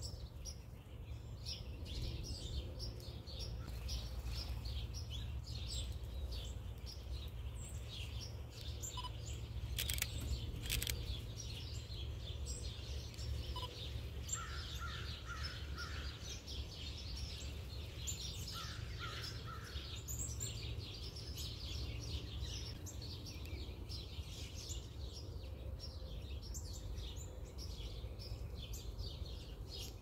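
Small birds chirping and twittering continuously in a dense chorus, with a short run of lower repeated notes about halfway through and again a few seconds later. Two sharp clicks about ten seconds in, over a steady low hum.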